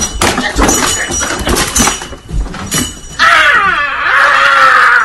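A floor lamp crashing over, with a run of knocks and thuds and the sound of breaking glass, followed about three seconds in by a loud, drawn-out wailing scream.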